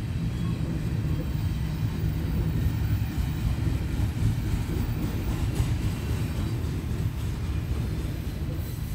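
Steady low rumble of a passing intermodal freight train.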